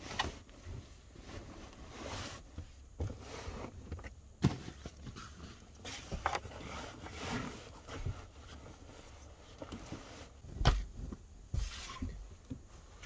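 Bedding being folded and moved about while making the bed: rustling fabric with several soft knocks and bumps, the loudest about eleven seconds in.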